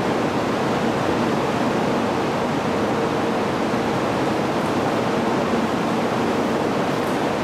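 Steady, even rushing noise with a faint hum beside a standing 800 series Shinkansen train at a station platform.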